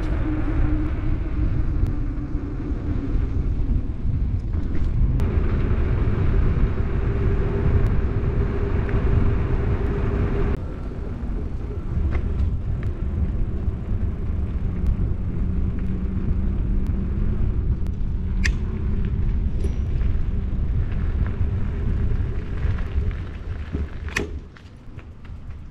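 Wind buffeting the handlebar-mounted camera's microphone and a steady rumble and hum from the mountain bike's tyres rolling on pavement, with a few sharp clicks. It quiets near the end as the bike slows to a stop.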